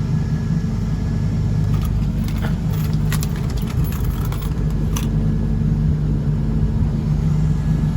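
Boat engine running steadily at cruising speed, with a few sharp clinks and rattles about two to five seconds in.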